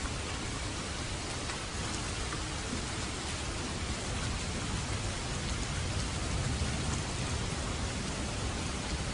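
Steady rain falling on a surface, an even hiss with a low rumble beneath and faint individual drop patters.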